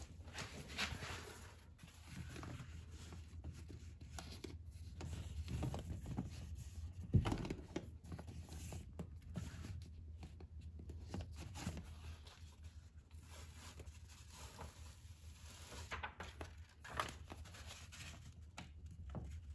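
Hands rustling and crinkling a plastic vapor barrier and a sheet of closed-cell foam as the foam is pressed into place against a car door's inner panel, with one soft knock about seven seconds in.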